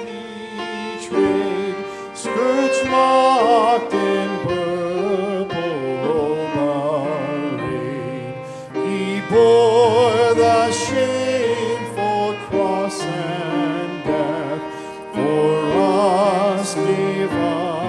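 Church service music: a melody with strong vibrato over sustained chords.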